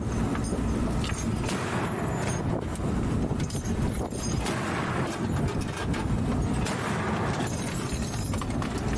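Mark VI patrol boat running at speed: a steady rush of engine, water and wind noise, with a few scattered knocks.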